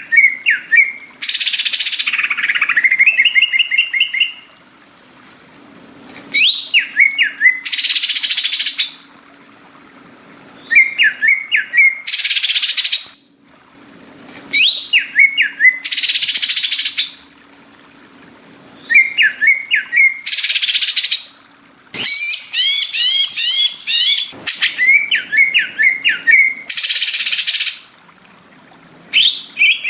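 Green leafbird (cucak ijo) singing in repeated phrases about every four to five seconds: each one a quick run of whistled notes going up and down, followed by a harsh hissing rasp about a second and a half long.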